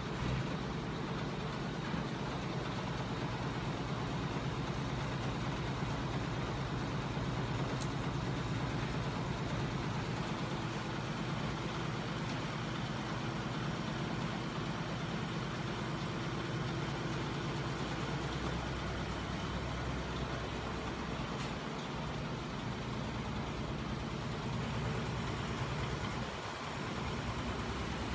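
Home-built flywheel-and-crankshaft machine driven by a 12 V electric motor, running steadily: a continuous mechanical hum and whir from the motor, spinning flywheel and crank linkages.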